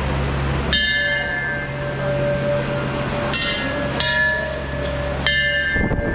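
Hanging brass temple bells struck by hand as a devotee walks beneath them: four strikes, each left ringing with several overlapping tones that slowly fade.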